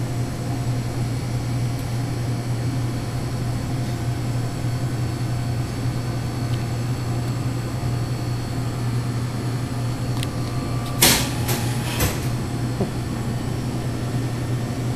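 Steady low hum of vending machines with a refrigerated drink cooler. About three-quarters of the way in come three sharp clacks within about a second, the first the loudest.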